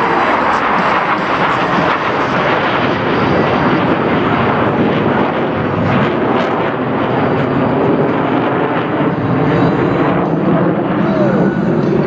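Loud, steady roar of Blue Angels F/A-18 Super Hornet jet engines as the jets pass the crowd line; it swells and eases slowly over the seconds.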